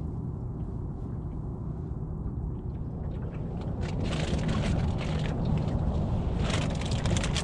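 Steady low rumble of wind on the microphone on an open boat. From about four seconds in it grows louder, with rustling and light knocks as a person shifts about in the small fishing boat.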